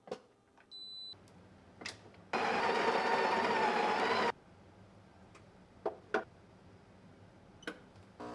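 Breville espresso machine: a short electronic beep, then its built-in grinder grinding beans for about two seconds, followed by a few light clicks.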